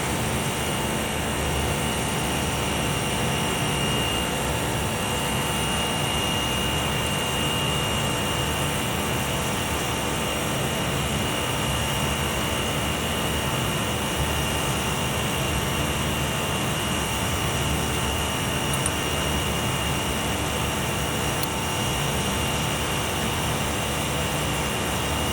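Steady drone of a running chiller plant: a constant low rumble with a steady high whine over it.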